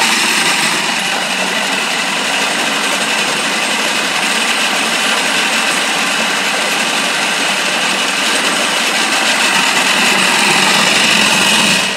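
Dillon CV-500 vibratory tumbler driving a bucket brass sorter, with a steady, dense metallic rattle of .45, .40 and 9mm brass cases shaking on the sorting grate. It shuts off abruptly right at the end.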